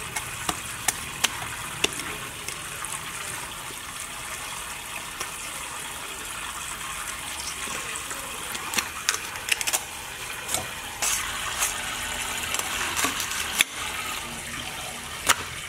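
Water running steadily, with sharp clicks and knocks from a cleaver cutting and scraping through a large fish; the clicks come more often in the second half.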